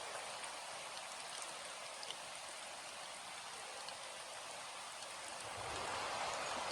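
Steady rain falling, an even hiss with scattered drop ticks. About five seconds in, a low rumble of distant thunder swells under the rain.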